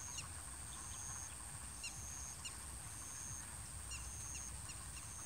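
Outdoor field ambience: short, quick falling bird chirps every second or so over a steady high thin whine and a high note that repeats about once a second, with a low rumble underneath.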